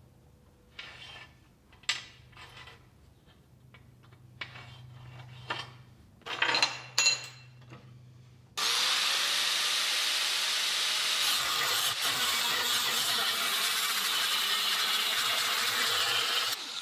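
Faint clinks and scrapes of steel plate being moved on a steel welding table. Then, about halfway through, a corded DeWalt 4.5-inch angle grinder fitted with an oversized six-inch cutoff disc spins up and cuts 3/16-inch steel plate steadily for about eight seconds, stopping just before the end.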